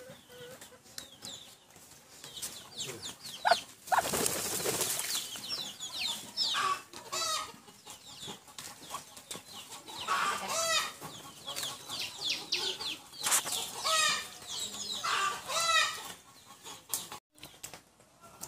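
Poultry calling repeatedly in short wavering clucks and chirps. A noisy rush lasting about a second comes around four seconds in.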